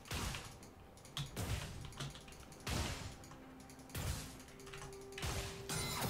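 Computer keyboard keys clattering in irregular clusters during video game play, with faint game sound effects and a couple of short held tones underneath.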